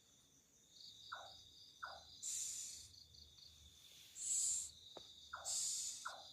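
A night bird gives three harsh, hissing screeches about half a second each, over a steady high-pitched cricket and insect chorus. Four short, lower, falling call notes are scattered between them.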